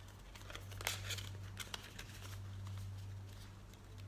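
Folded A4 paper being worked open by hand: soft rustling with a few sharp paper crackles, over a faint steady low hum.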